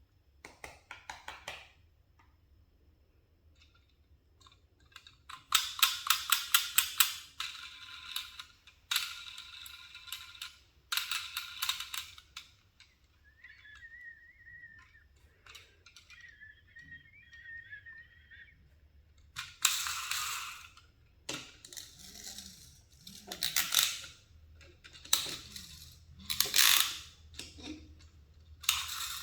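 Toy packaging being handled and opened: crinkling and crackling plastic and cardboard in bursts, with a run of rapid clicks and a faint wavering tone in the middle.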